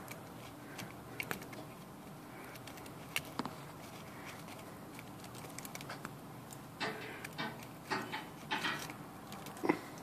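Faint, scattered clicks and light taps of a pick and fingertips against the plastic key tops of an IBM Selectric III keyboard while bits of rotted rubber membrane are picked out from between the keys. The clicks are sparse at first and come in a quicker cluster in the second half.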